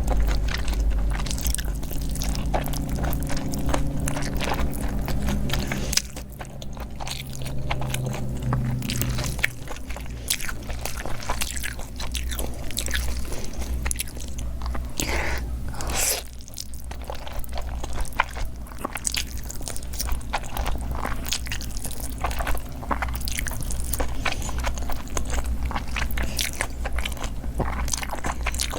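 Close-miked mukbang eating sounds: biting and chewing, with many irregular sharp mouth clicks and smacks throughout.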